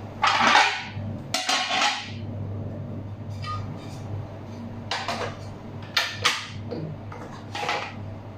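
Removable metal cooking plates of a Kenwood sandwich toaster clattering and scraping as they are handled, set down and slid into the box, in about six short rattles and knocks.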